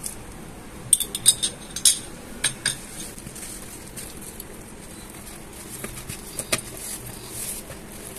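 Hands kneading stiff dough in a plastic bowl, broken by sharp clinks and taps: a cluster about a second in and a few more later on.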